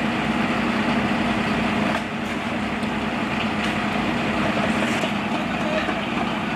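Fire engine's diesel engine running steadily at idle, with a constant hum under a steady rush of noise.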